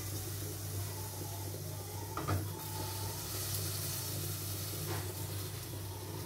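Steady low hum and faint even hiss of a lit stove with an empty aluminium pan heating on it, with a light knock a little over two seconds in.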